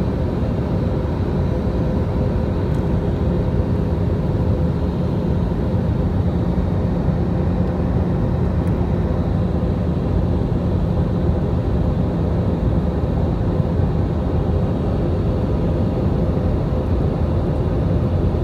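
Steady cabin noise of a jet airliner on approach: a dense rush of engine and airflow noise with a low hum and a few faint steady tones on top.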